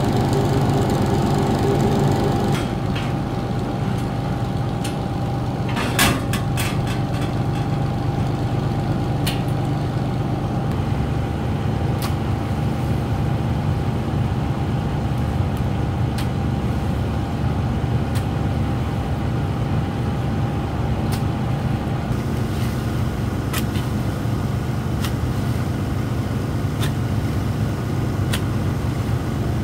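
Steady low drone of a running machine, with scattered sharp clicks and scrapes of a metal rake dragging through a pile of wood chips and bark.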